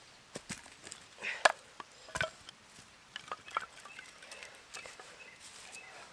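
Small pieces of seasoned ash being split: a few short knocks and cracks of wood, the sharpest about a second and a half in and another just after two seconds, then fainter small clicks of the pieces being handled.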